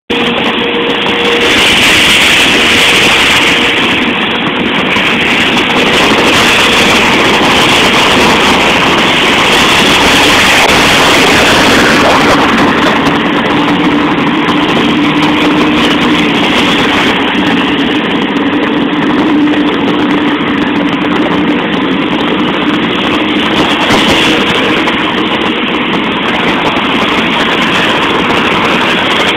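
Loud, steady noise of rain and nearby road traffic. A vehicle engine's hum runs through the middle stretch.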